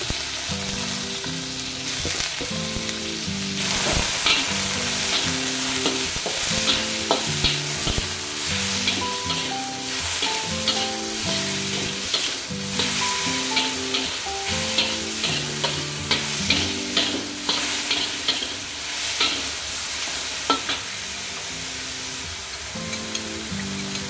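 Shimeji mushrooms sizzling as they are stir-fried in a wok, with a metal spatula scraping and clinking against the pan many times. Background music plays underneath.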